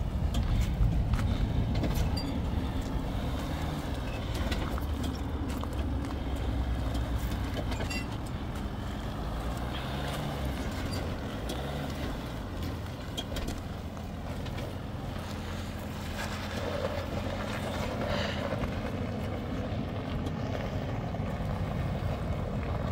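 Jeep Wrangler JL on 37-inch tires crawling over large boulders: the engine runs at low revs, its pitch rising and falling a few times in the middle as throttle is fed in, with scattered knocks and scrapes of the tires on rock.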